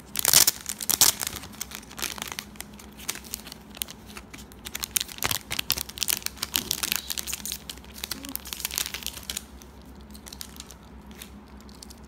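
Plastic packaging crinkling and rustling as a keyring is unwrapped from a clear plastic case and a plastic bag. It comes in irregular bursts, loudest about half a second in and busy again from about five seconds, then settles to a few faint clicks near the end.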